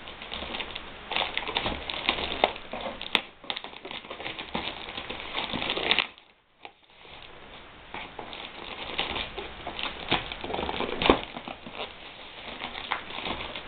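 Plastic mailer bag crinkling and rustling as it is handled and cut open with scissors, with a few sharp clicks; the noise stops briefly about six seconds in.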